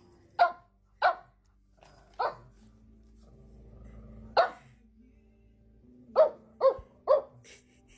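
Small dog barking: seven short, sharp barks, with a pair in the first second or so, single barks near 2 s and near the middle, and three quick barks near the end.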